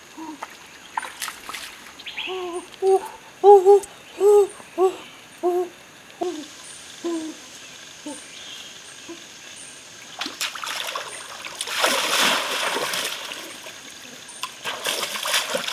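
A bird calls a run of about eight short, low hoots, roughly two a second. After a pause, water splashes and sloshes as a person moves through a shallow rocky stream, twice.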